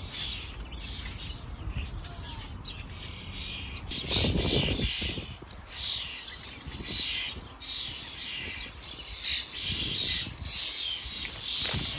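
Garden birds chirping in quick, overlapping calls, with a louder burst of lower noise about four seconds in and a low rumble underneath.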